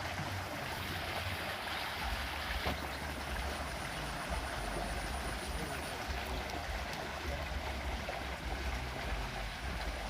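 Water running steadily in a small ditch, with an uneven low rumble underneath.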